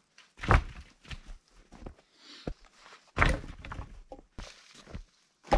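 An armload of cut branches dropped on the snow, then footsteps in snow and more thuds of wood being handled. There are three loud crashes, about half a second in, about three seconds in and near the end, with smaller knocks between.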